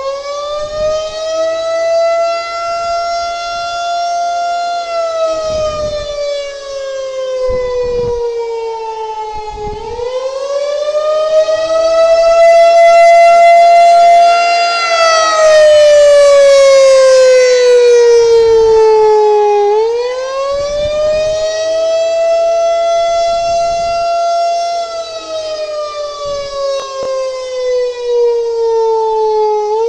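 Federal Signal 2001-130 electromechanical rotating outdoor warning siren sounding a wail: its tone climbs quickly, holds, then slides down, over and over about every ten seconds. It grows louder and softer as the horn turns, loudest around the middle.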